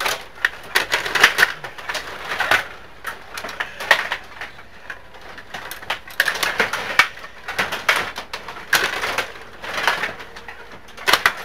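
Stiga table hockey game in play: plastic players, rods and puck knocking and clattering in rapid, irregular bursts of sharp clicks.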